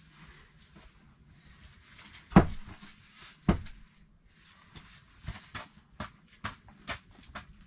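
Two heavy wooden knocks about a second apart as short logs are set down or knocked together, followed by a quicker run of lighter wooden knocks and scuffs as the logs are handled.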